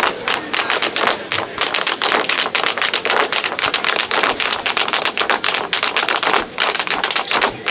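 Tap dancing: metal taps on shoes striking a hard floor in fast, dense runs of sharp clicks.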